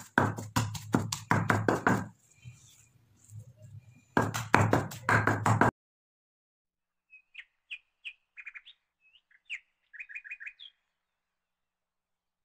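Wooden pestle pounding boiled spinach in a stone mortar: fast, regular thuds in two runs, the second starting about four seconds in and stopping abruptly. A few seconds later come scattered short, high bird chirps.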